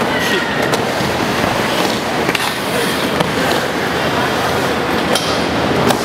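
Skateboard wheels rolling across a skatepark ramp over a steady background din, with a few sharp clacks of the board near the end.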